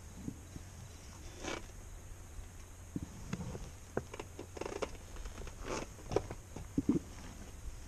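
Faint scattered rustles, scuffs and light knocks of someone moving about and handling gear, over a low steady hum.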